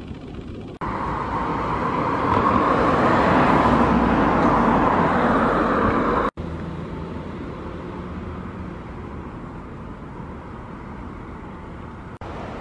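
Road traffic noise: the rush of a vehicle's tyres and engine swells about two seconds in and cuts off abruptly around halfway, leaving a quieter steady outdoor background noise.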